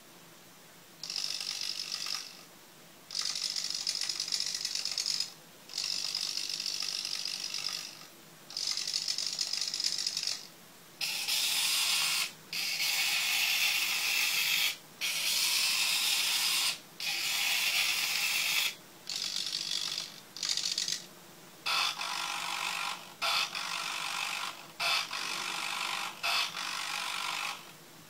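The small electric gear motors of a remote-control Merkava model tank whirring in about fifteen short bursts of a second or two each, with brief pauses between, as the turret is traversed back and forth.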